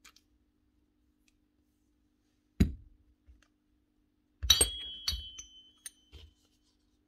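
Steel parts of a rotary hammer's internals being handled and set down on a workbench: one knock about two and a half seconds in, then a cluster of metal clinks with a short ring, and a couple of lighter taps.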